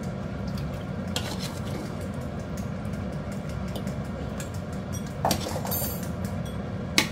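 Ladle and chopsticks clinking against a large cooking pot and a ceramic bowl while boiled chicken is lifted out of the broth: a few scattered clinks, one with a brief ring about five seconds in and the sharpest near the end. A steady low hum runs underneath.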